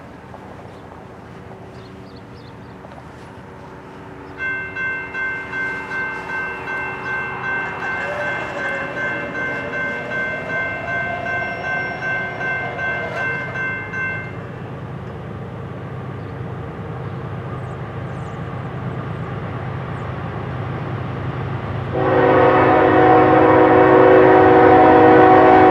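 An approaching Norfolk Southern GE ES44AC diesel locomotive, its GEVO V12 rumbling louder as it nears. A bell dings two or three times a second for about ten seconds, and about 22 s in the locomotive's air horn blows a loud, sustained chord.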